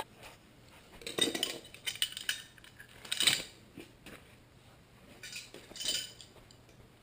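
Metal hand tools clinking and clattering as they are picked up and handled, in a few short clusters.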